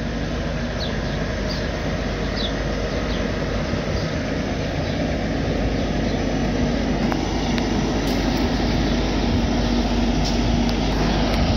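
Heavy-duty wrecker's diesel engine idling with a steady hum, growing slowly louder.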